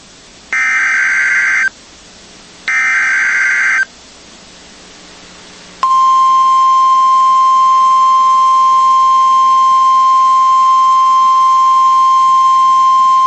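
NOAA Weather Radio Emergency Alert System signal. First come the last two of the three digital SAME header bursts, each a harsh, buzzing data burst about a second long. About two seconds after them, the steady 1050 Hz warning alarm tone cuts in and holds, heralding a tornado watch bulletin.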